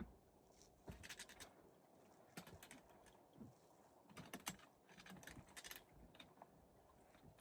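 Faint footsteps on rock and gravel: clusters of small crunches and clicks, several steps at a time.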